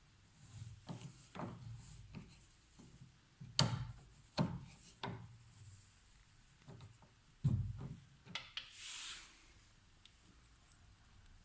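Hands and tools working on a car door handle assembly: irregular knocks and clicks of plastic and metal parts, the loudest about 3.5 and 7.5 seconds in, with a short scraping rub near 9 seconds.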